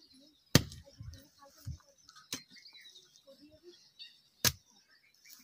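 Hand hoe being swung overhead and driven into the earth, three sharp strikes about two seconds apart, the first the loudest.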